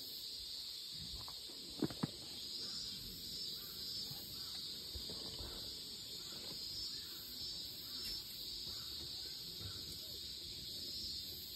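Quiet outdoor ambience with a steady high hiss, broken by two sharp clicks close together about two seconds in.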